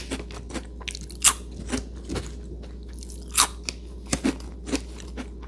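Irregular sharp crunches, two or three a second, the loudest about a second in and just past three seconds in, over a steady low hum.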